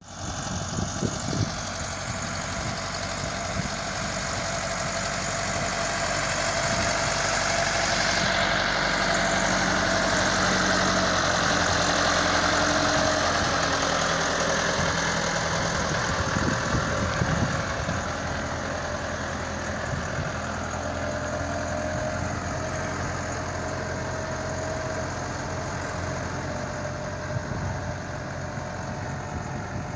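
Engine of heavy road-construction machinery running steadily, with scattered knocks and clanks; it grows a little louder around the middle, then eases back.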